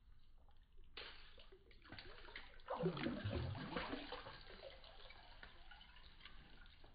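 Water splashing and sloshing in an ice-fishing hole as a walleye held by the tail is let go and kicks away, loudest about three seconds in.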